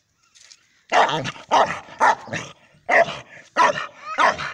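A dog barking in a quick run of about eight short barks, roughly two a second, starting about a second in.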